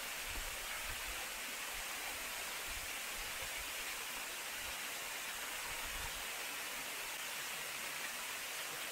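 Steady rush of flowing water, like a mountain stream or waterfall, with a few soft low bumps in the first several seconds.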